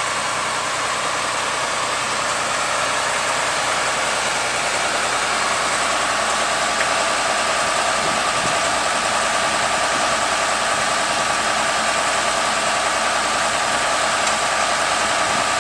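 Diesel engine of a 1993 Wirtgen 1000VC milling machine running steadily while the machine drives slowly, with a steady whine that grows stronger about five seconds in.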